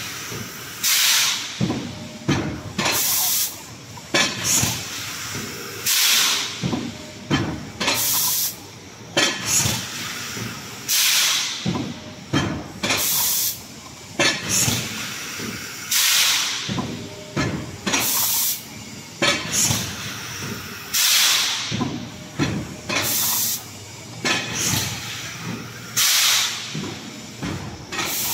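Plastic cup thermoforming machine running through its cycle: a sharp hiss of compressed air about every one and a half to two seconds as cups are formed and blown out of the mould, with short mechanical knocks of the press between the hisses.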